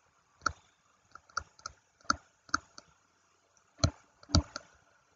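About ten short, irregular clicks and taps from the pen-input device while a word is handwritten onto the screen, the two loudest a little before and after the four-second mark.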